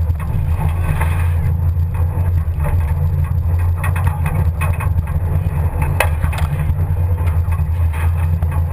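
Pinzgauer off-road truck driving on a woodland track, heard from its open rear bed: a steady low rumble from the drivetrain, with the body and load bed rattling and knocking over bumps, one sharp knock about six seconds in.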